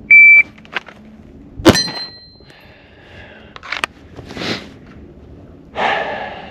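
Shot-timer beep, then about a second and a half later a single handgun shot fired from a draw, with a brief metallic ring after it. A smaller sharp click follows a couple of seconds later.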